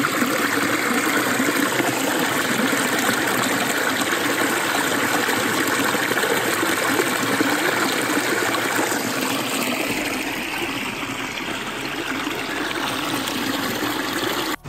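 Shallow creek water running over sandstone rock and spilling into a rock pool, a steady close rush that eases a little about ten seconds in.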